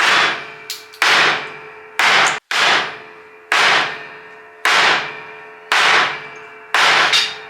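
A heavy cleaver forged from leaf-spring steel chopping into a 2x4 eight times, about once a second. Each chop is a sharp hit followed by a short ringing tail.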